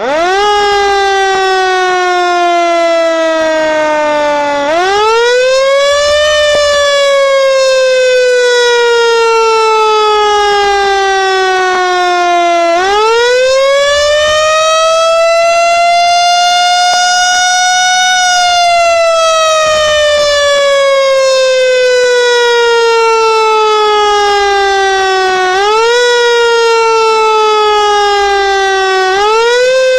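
Fire truck siren wailing, loud and continuous. Its pitch climbs quickly and then slides slowly down, again and again. The longest climb is in the middle, and there are two short lifts near the end.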